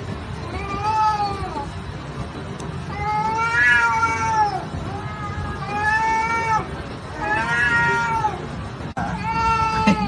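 Domestic cat yowling at golden retrievers: about five long drawn-out calls a second or two apart, each rising then falling in pitch. These are the threat yowls of a cat in a standoff with a dog.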